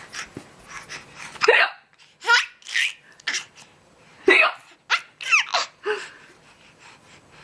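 A young child laughing in a string of short, high-pitched bursts, starting about a second and a half in and ending near the six-second mark.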